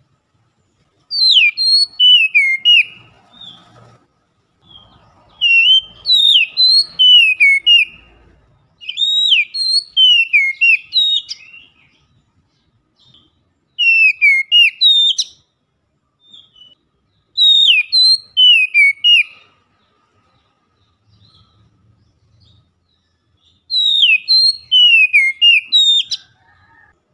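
Oriental magpie-robin (kacer) singing loudly in six separate phrases of sweeping, whistled notes with high trills, each phrase a second or three long, with short pauses between.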